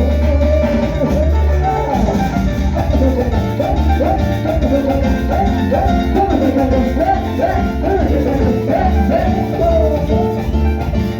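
Salsa music playing loudly and without a break, with a heavy bass line under a busy melody that bends up and down.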